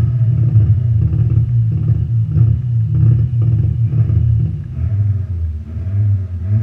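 A race car's engine idling loudly, heard from inside its stripped, roll-caged cabin, with its pitch wavering briefly near the end.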